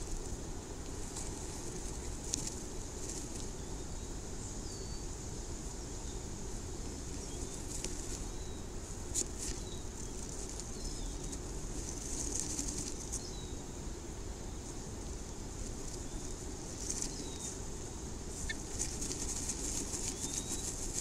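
Bluebird shifting and settling on its grass nest in a nest box: dry grass and feathers rustling and scratching in short spells every few seconds, busiest near the end. A few faint high chirps come now and then over a steady low hum.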